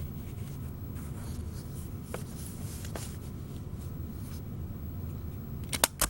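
Sheets of paper being handled and shuffled, with faint rustling and a few small clicks, then sharp clicks near the end as the Office Elite stapler is pressed down on the stack.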